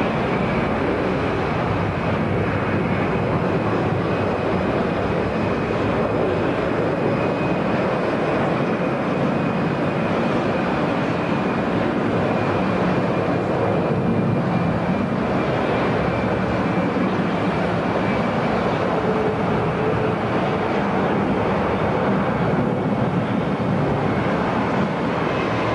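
Boeing 747's jet engines at takeoff power: a steady, dense noise with a faint thin high whine above it.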